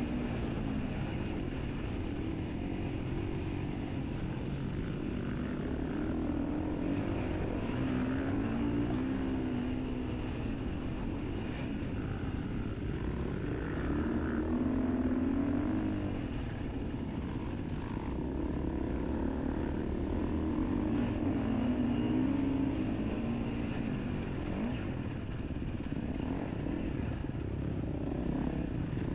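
Enduro motorcycle engine running continuously, its pitch rising and falling every few seconds as the throttle is opened and closed.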